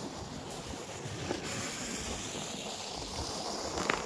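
A plastic sled dragged across snowy ice, a steady scraping hiss, with a sharp click near the end.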